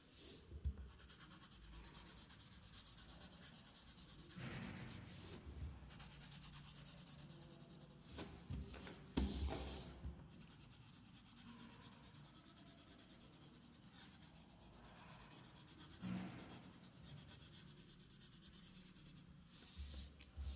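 Coloured pencil shading lightly across drawing paper: faint scratchy strokes that come in a few short spells with small clicks, and the sheet is slid across the table near the end.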